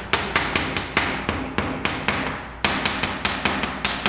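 Chalk tapping on a blackboard as characters are written: a quick, irregular series of sharp taps, about three or four a second, with a short let-up about two seconds in.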